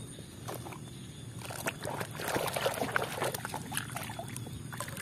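Muddy, soapy water sloshing and splashing in a basin as a hand scrubs a small plastic toy truck under the surface, with irregular small splashes, busiest in the middle.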